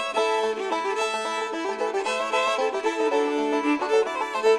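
Instrumental background music with fiddle and banjo in a bluegrass style.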